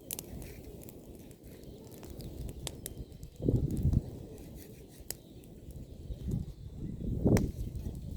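Bonfire of pruned apple branches crackling, with sharp pops and snaps scattered throughout. Low rushing surges swell about three and a half seconds in and again near the end.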